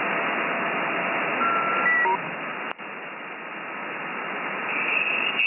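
Shortwave SSB reception through a FLEX-1500 software-defined transceiver: steady band hiss with faint whistling carriers and a few short beeping tones about two seconds in. After the beeps the hiss drops, then slowly rises again, with a click near the three-second mark.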